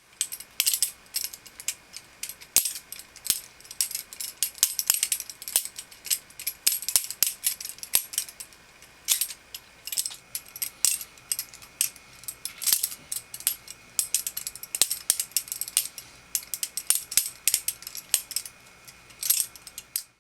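Balisong (butterfly knife) being flipped continuously, its metal handles clacking against each other and the blade in rapid, irregular clicks, several a second, without a break.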